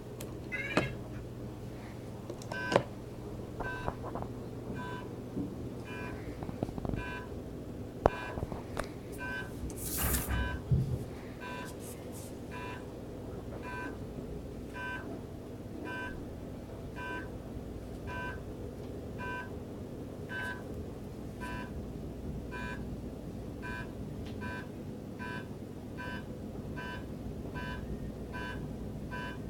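Electronic countdown ticks from a PIC microcontroller: short two-tone beeps, a chord of two pitches, repeating evenly at about three every two seconds. A brief warbling sweep comes just after the start, and a few knocks and a loud rustling burst come about a third of the way in.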